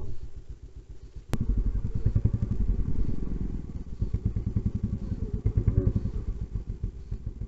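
Dirt bike engine running close to the microphone, a low, rapidly pulsing rumble that starts suddenly after a sharp click about a second in.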